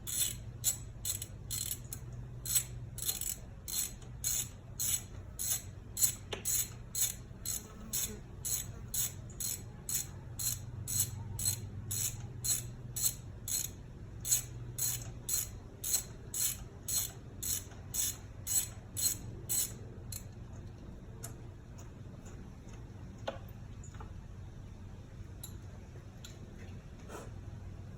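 Hand ratchet clicking in quick even strokes, about two a second, as a spark plug is backed out of the engine. The clicking stops about two-thirds of the way through, leaving a few scattered clicks.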